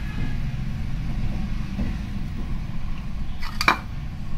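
Steady low rumble of background noise, with a single sharp tap about three and a half seconds in.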